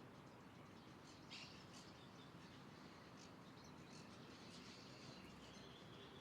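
Faint, scattered bird chirps, the clearest a little over a second in, over a steady low background hum.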